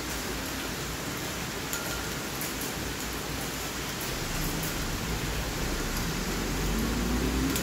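Steady rain falling, an even hiss with scattered sharp drip ticks. Over the last few seconds a vehicle's low hum rises in pitch and grows louder.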